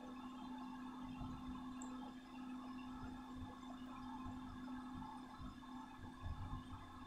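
A faint steady hum with an uneven low rumble underneath; no distinct knocks or pouring.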